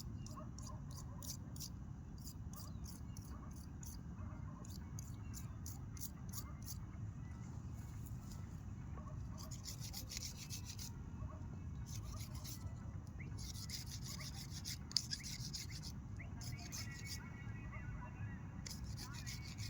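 Steady low rumble of a camping gas stove burning under a covered pot, with night insects chirping over it in rapid high ticking trills that come in dense bursts. A single sharp click about fifteen seconds in.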